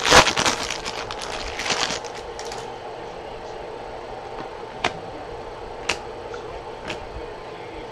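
A Topps Chrome trading-card pack's wrapper crinkling as it is torn open, dying away after about two seconds. Then come single sharp ticks about a second apart as the cards are flipped through one by one.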